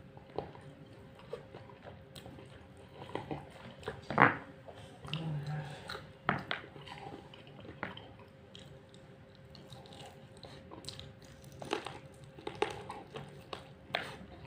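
Close-up chewing and mouth sounds of a man eating chicken biryani by hand, with scattered short clicks and taps. The loudest is one sharp click about four seconds in. A faint steady hum lies underneath.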